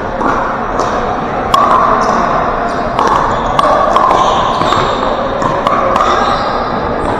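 Pickleball paddles hitting the plastic ball in a fast rally at the net, a quick run of sharp pops roughly every half second, echoing in a large gym over steady background hall noise.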